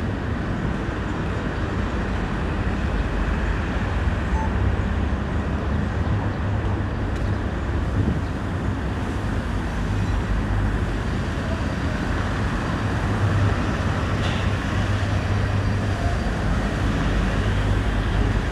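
Steady low background rumble of traffic, unbroken and even in level.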